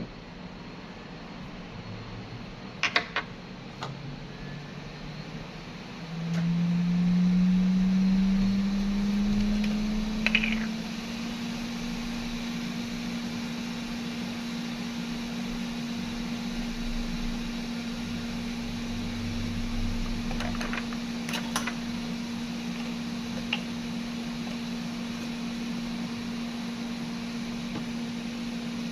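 A small electric fan motor spins up, its hum rising in pitch over several seconds, then runs at a steady pitch. A few light clicks come through, near the start and about two-thirds of the way in.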